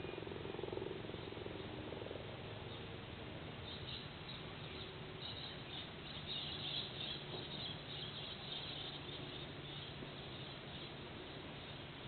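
Steady hiss of an outdoor nest-camera microphone under faint, high-pitched chirring animal calls. The chirring is strongest from about four to nine seconds in.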